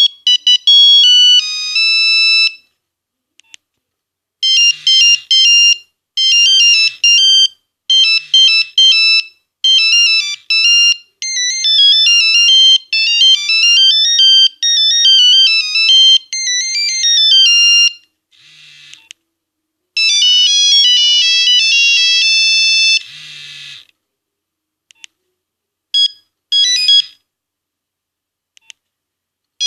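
Nokia 1101 monophonic ringtones played through the phone's small speaker: several short, high-pitched beeping melodies, one note at a time, following one another with brief gaps.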